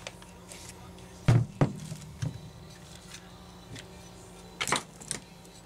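A few scattered knocks and clicks of chainsaw recoil-starter parts being handled, with a couple of heavier thumps about a second and a half in and two sharper clicks near the end.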